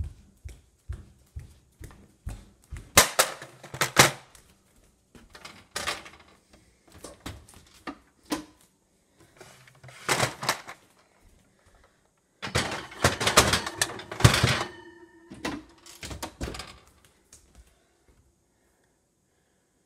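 Irregular knocks, clicks and clattering of objects being handled and set down, with loud clusters about three seconds in and again from about twelve to fifteen seconds in. The clatter dies away near the end.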